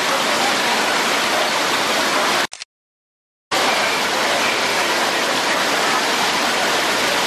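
Waterfall water rushing and splashing, a steady, even noise. It cuts out abruptly about two and a half seconds in and resumes a second later at the same level.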